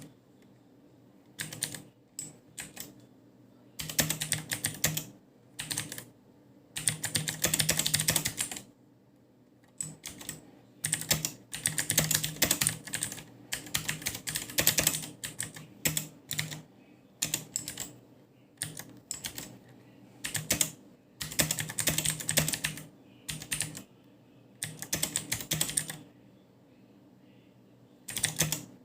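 Typing on an Akko 3108 V2 mechanical keyboard with Akko blue clicky switches: bright, sharp key clicks in quick bursts of a second or so, with short pauses between.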